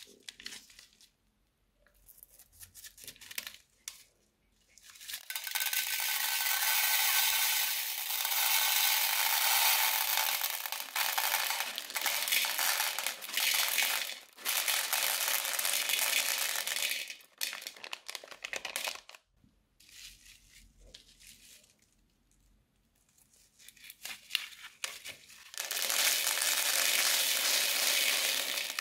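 Small plastic beads and pearls pouring out of a plastic piping bag into a plastic bowl, a dense rattling patter with crinkling of the bag. One long pour starts about five seconds in and lasts about twelve seconds, a second pour comes near the end, and in between there are only scattered clicks and bag crinkles.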